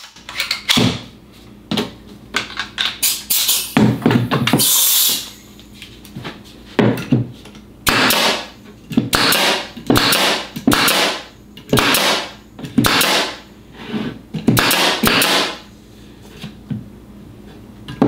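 Pneumatic nailer fired again and again into wood, each shot a sharp bang followed by a short hiss of exhaust air, with a longer hiss of air about four seconds in. The nailer is driven by a small cordless compressor.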